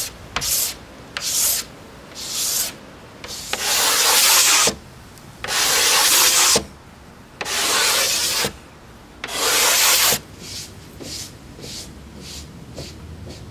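Sandpaper rubbed by hand along the wooden deck of a hollow wooden surfboard in back-and-forth strokes, smoothing out sanding marks. A few short strokes come first, then four long ones of about a second each, then lighter, quicker strokes near the end.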